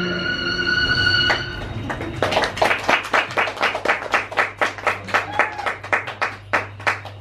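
The last held notes of the accompanying music die away, and about two seconds in a small audience starts clapping, thinning out toward the end.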